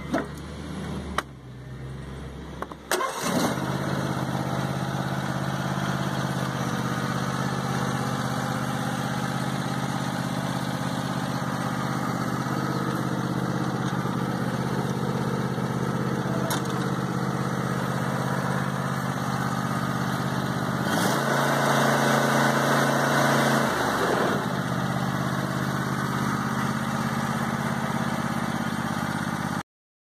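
John Deere E180 garden tractor's 25 hp V-twin engine starting about three seconds in, then idling steadily. It runs with the seat safety switch bypassed. Around twenty-one seconds in the engine speeds up for a few seconds, then settles back to idle.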